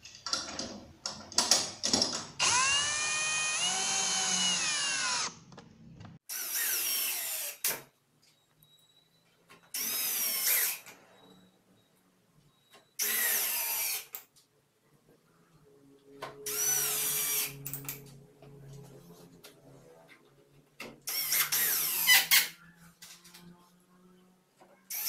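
Cordless drill running in seven short bursts into melamine cabinet panels. Each burst is a whine that rises in pitch as the drill spins up; the first is about three seconds long and the rest about a second each. A few clicks come before the first run.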